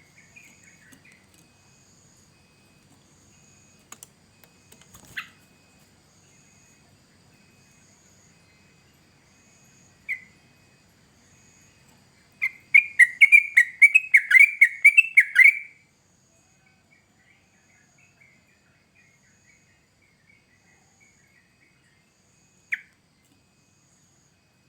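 Yellow-vented bulbul (trucukan) calling: a few single chirps, then a burst of rapid song for about three seconds midway, and one more chirp near the end.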